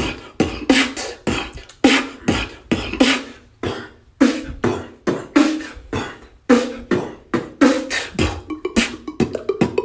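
A man beatboxing: mouth-made kick and snare hits at a steady pulse of about two to three a second, breaking into a quicker run of rapid hits near the end.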